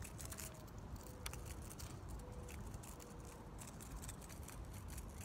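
Quiet outdoor background: a low steady rumble with scattered faint clicks and four faint short tones, spread through the stretch.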